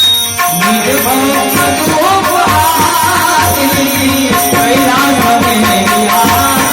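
Bhajan music: tabla drumming under a melodic line that glides between notes, coming in about half a second in.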